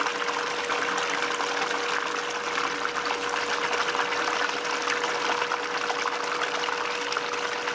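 Water running steadily through a Gold Hog multi-sluice, pouring from the header box and rippling over the riffles as black-sand concentrate is processed. A steady hum sits underneath.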